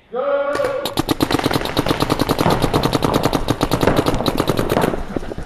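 A shout of "Go!" and then paintball markers firing reballs in rapid, continuous strings for about four seconds, the shots thinning out near the end.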